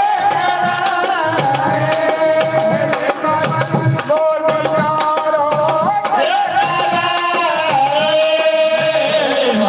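A man singing a Hindi devotional bhajan with long held notes that slide between pitches, accompanied by harmonium and a hand drum keeping a steady beat.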